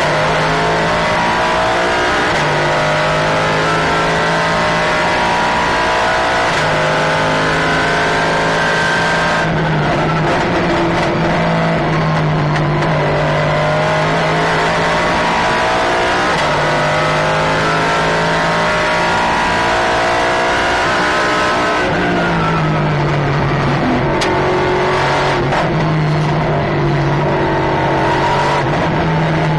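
Nissan GT-R GT1 race car's engine at full race pace, heard from inside the cockpit. The note climbs and steps down through repeated gear changes, then falls as the car slows and shifts down, about ten seconds in and again about 22 seconds in.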